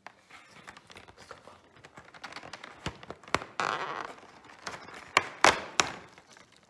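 Cardboard advent calendar being handled and a perforated door pried open with the fingers: scattered taps and scrapes, a short rustling tear about halfway through, then three sharp snaps of the card near the end.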